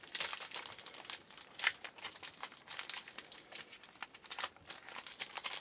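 Wrapper of a trading card pack crinkling and tearing as it is pulled open by hand, a dense run of sharp crackles; the pack is hard to open.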